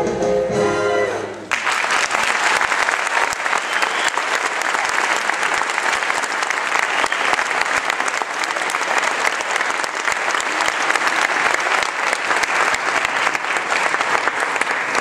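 Dance music ends abruptly about a second and a half in, and an audience breaks into steady applause that lasts until the end.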